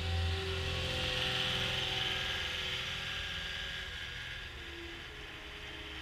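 Caterpillar 242D skid steer loader's diesel engine running as the machine drives past, its hum strongest about the first second in and then fading steadily as it moves away.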